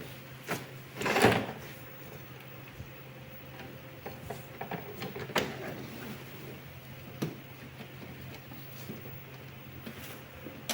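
Parts of a portable folding table being handled and unfolded: scattered knocks, clicks and scrapes, with a louder scrape about a second in, over a steady low hum.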